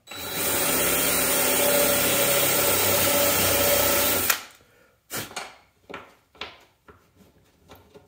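Power drill with a Forstner bit boring a shallow stopped-depth hole into a wooden kayak deck for a magnet latch: the motor runs steadily for about four seconds, then stops with a click. A few light knocks follow.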